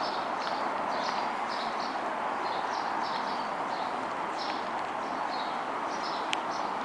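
Small birds chirping in short, repeated calls a couple of times a second over a steady background hiss, with one sharp click about six seconds in.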